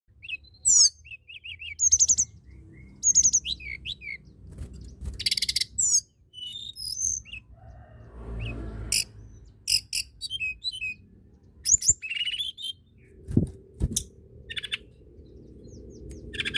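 A tledekan gunung singing a varied run of short, high chirps, trills and sharp whistled notes with brief pauses between phrases. Two sharp knocks come near the end.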